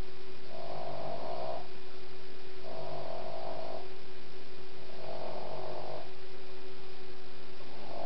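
Boston Terrier snoring in his sleep, a rhythmic snore about every two and a half seconds, each lasting about a second, over a steady electrical hum.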